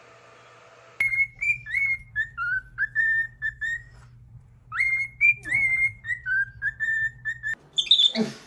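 A whistled tune: a phrase of clear, gliding notes, then after a short pause a second phrase much like the first, over a faint low hum. A short, loud sound follows near the end.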